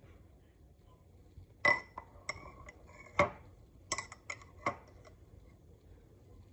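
A metal table knife clinking against a glass jam jar while scooping out jam: about seven sharp, lightly ringing clinks in a little over three seconds, the loudest near the start.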